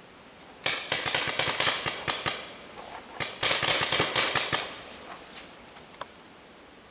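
Paintball markers firing: two rapid volleys of sharp pops, each about a second and a half long, with a few scattered single shots afterwards.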